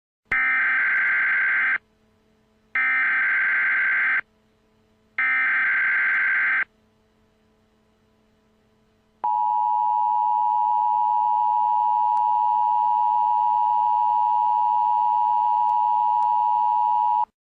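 Emergency Alert System tones. First come three short bursts of SAME header data, each about a second and a half with a pause between. About nine seconds in, the steady two-tone EAS attention signal (853 and 960 Hz) starts and holds for about eight seconds, then cuts off.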